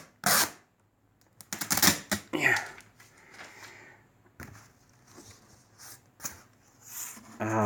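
Adhesive tape being peeled and ripped off a package: short ragged tearing rasps in the first few seconds, then fainter rustling and scraping of the package being handled, with a few sharp clicks.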